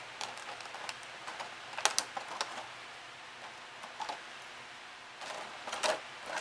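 Clear plastic blister packaging crinkling and clicking as an action figure and its accessories are pulled out of the tray: scattered clicks, with sharper snaps about two seconds in and again near the end.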